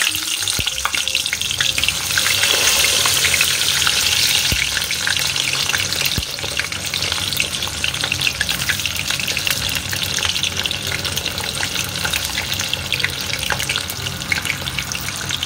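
Frozen shrimp pancake deep-frying in a pot of hot oil: steady sizzling thick with fine crackles, a little louder a few seconds in.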